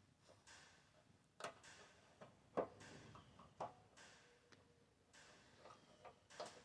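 Faint, irregular clicks and taps with soft rustling between them, from parts and screws being handled while a clothes dryer is taken apart.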